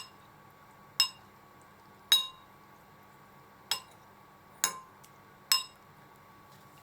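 Sharp clinks of hard kitchenware, each ringing briefly: five clear ones at uneven intervals, after a faint one at the very start.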